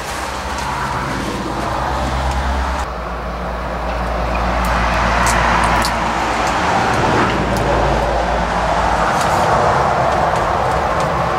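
Motor vehicle traffic: a steady engine hum with a rushing noise that swells toward the middle and eases off, plus a few light clicks.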